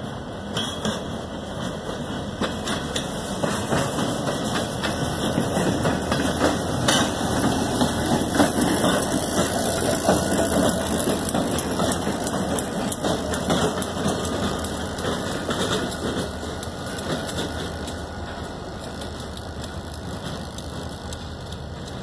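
Two diesel-electric road-switcher locomotives with a freight car rolling slowly past close by, engines running, with clicks and clanks from the wheels on the rails. It grows louder to a peak about halfway through, then fades as they move away.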